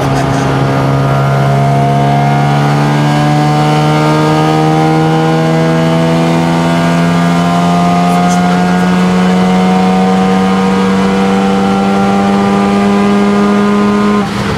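Mazda RX-7 FD3S's single-turbo 13B rotary engine heard from the cockpit, pulling hard under load with its note rising slowly and steadily through a long high-gear run, then breaking off abruptly near the end.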